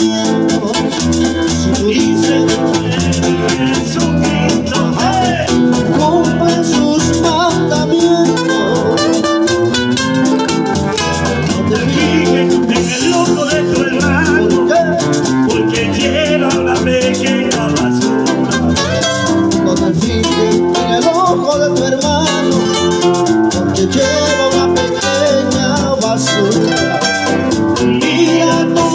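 Live Latin American Christian music: two acoustic guitars, one picking melody lines, over an electric bass, with a man singing in Spanish and a shaker-like rattle keeping the beat.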